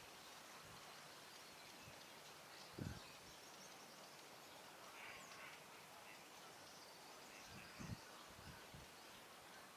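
Near silence: faint outdoor hiss with a few faint, distant bird calls and two brief low thumps, one about three seconds in and one near eight seconds.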